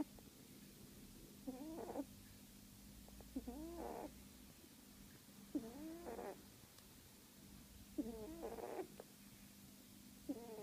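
Sleeping cat snoring, a short wavering whistle-like snore on each breath, about one every two seconds.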